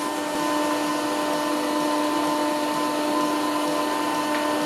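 Electric motor and hydraulic pump of a homemade hydraulic power pack running with a steady, even hum on its test run.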